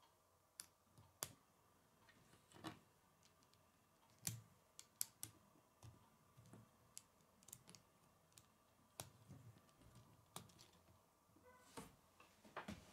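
Plastic K'nex pieces clicking and snapping together by hand as connectors and rods are fitted: scattered light, irregular clicks.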